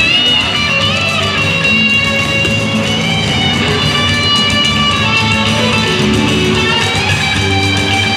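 Joropo dance music with quick strummed and plucked strings.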